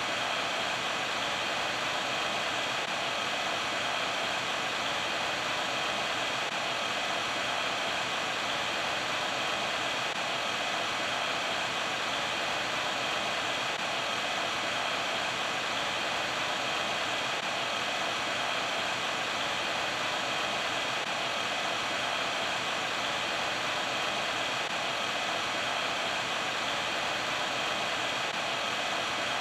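858D hot air rework station blowing air for solder-paste reflow: a steady, even hiss with a faint steady whine, unchanged throughout.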